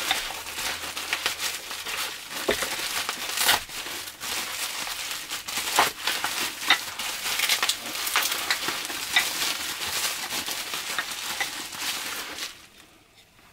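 Plastic bubble wrap being handled and pulled off a long object, crinkling and rustling with many small crackles, until it stops near the end.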